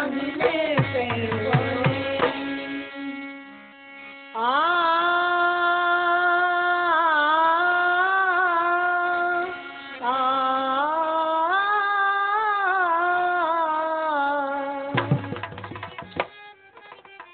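Indian folk stage music: a singer holds two long, slowly wavering notes, with hand-drum beats at the start and again near the end.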